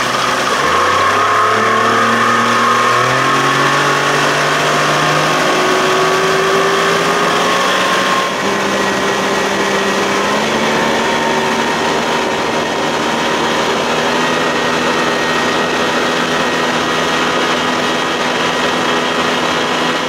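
Johnson 60 hp two-stroke outboard running under load, its pitch climbing in steps over the first few seconds as the boat speeds up, then holding steady at speed. Wind and water rush along underneath.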